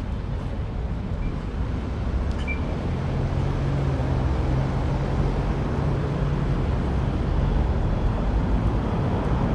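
City street traffic: a motor vehicle's engine running close by, a low rumble with a steady hum in the middle seconds, getting louder toward the end.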